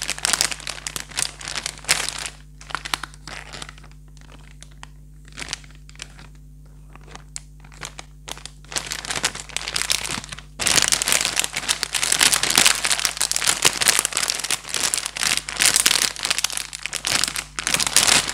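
Crinkling of a plastic blind bag handled in the hands: scattered crackles for the first several seconds, then dense, continuous crumpling from about ten seconds in as the bag is squeezed.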